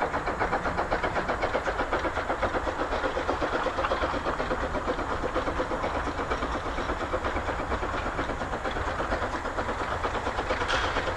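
Polish Px48 narrow-gauge steam locomotive's exhaust chuffing in a quick, steady rhythm of about five beats a second as it pulls its train.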